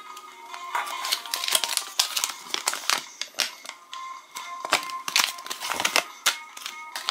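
Crinkling and rustling of a small folded paper leaflet being unfolded by hand, in a run of quick crackles, over background music.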